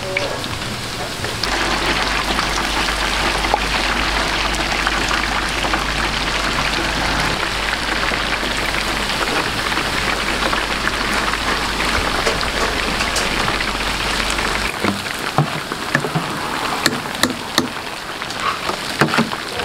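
Battered skewers deep-frying in a large vat of hot oil: a dense, steady sizzle and crackle that grows louder about a second and a half in, then thins to sharper, separate pops after about fifteen seconds.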